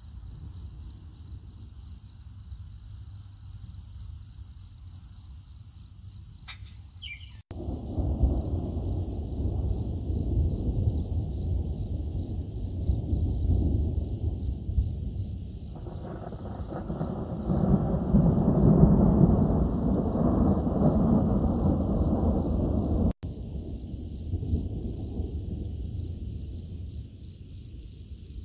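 Thunder rumbling for about fifteen seconds, starting abruptly about a quarter of the way in, swelling to its loudest past the middle, and cutting off sharply near the end. Crickets chirp steadily underneath throughout.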